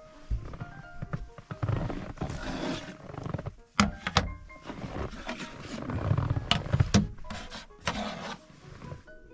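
Rustling, rumbling handling noise with several sharp clicks and knocks, over quiet background music.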